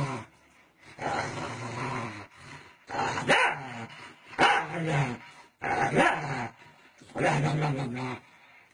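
Small dog growling and snarling in about five short bouts, with a few sharp barks among them, as a hand pokes at its face.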